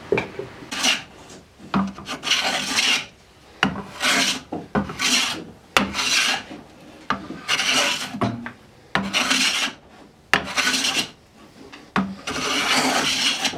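Hand plane shaving the edge of a wooden board in repeated push strokes, about ten of them roughly a second apart, each starting sharply as the blade bites into the wood.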